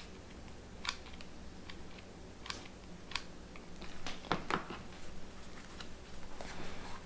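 Scattered light clicks and taps from working with a hot glue gun and pressing a 3D-printed plastic hand plate onto a work glove, busiest a little past the middle, over a faint steady hum.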